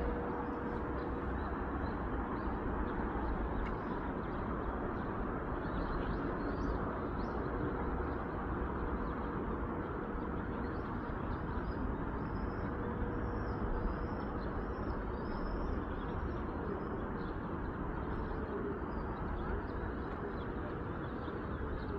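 Steady outdoor background noise, an even rumble and hiss, with faint high bird chirps now and then, thickest about halfway through.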